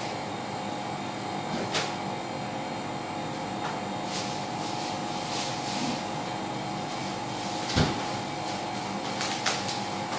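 Steady kitchen appliance hum, with a few sharp knocks and clicks of things being handled, the loudest about eight seconds in.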